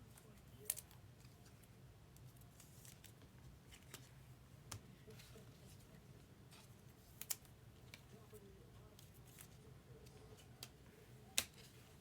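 Handling of trading-card packs and cards: a few sharp snips and clicks, the loudest about a second in, at seven seconds and near the end, over a faint low room hum.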